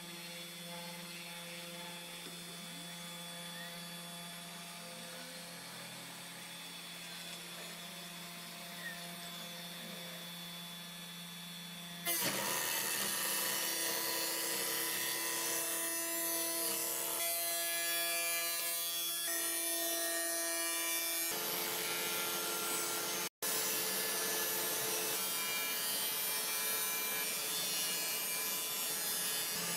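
Sainsmart 3018 PROVer CNC router's spindle running a 22 mm surfacing bit across a chipboard spoilboard, a steady motor hum. About twelve seconds in it becomes louder, with a rough hiss of the bit skimming the board surface.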